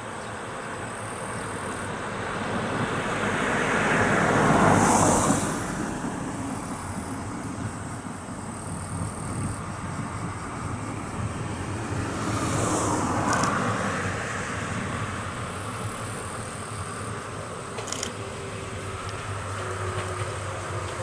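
Two road vehicles pass by in turn, each swelling to a rush of tyre and engine noise and fading away. The first, about four to five seconds in, is the louder. Near the end an approaching electric train begins to be heard.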